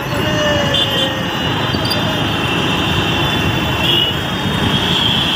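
Steady road and traffic noise heard while riding along a busy street, with the voices of people in the street mixed in.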